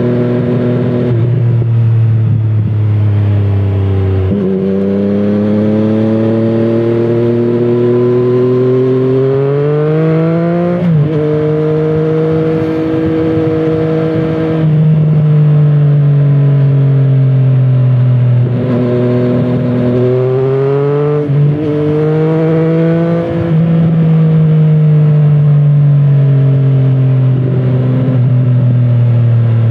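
Triumph Street Triple 765RS inline-three engine through a Scorpion Serket Taper carbon exhaust, under way. Twice the note climbs steadily for several seconds under acceleration, then drops sharply at an upshift. Between the climbs it holds steady or eases down.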